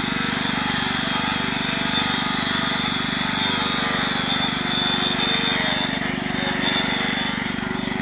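A rail grinding machine's abrasive wheel grinding down the head of a rail at a welded joint. It makes a steady motor drone with a high grinding whine over it.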